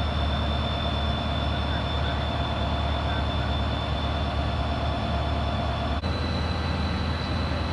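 Siemens Charger SC-44 diesel locomotive standing with its Cummins QSK95 engine running steadily: a deep, even drone with a thin, steady high whine above it.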